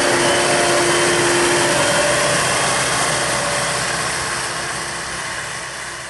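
Diesel engine of a Manitou MRT 1850 rotating telehandler running as the machine drives by, fading steadily from about halfway through as it moves away.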